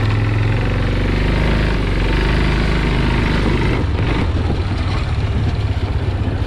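Yamaha Big Bear 250 ATV's single-cylinder four-stroke engine running on a test ride, then easing off about four seconds in to a slower, pulsing putter.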